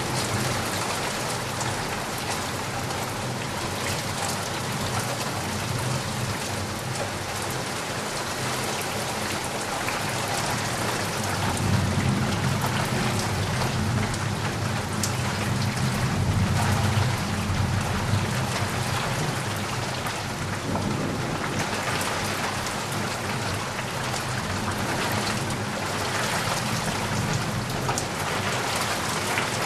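Steady rain, with drops tapping and knocking against a surface. A low rumble of thunder swells from about twelve seconds in and fades about seven seconds later.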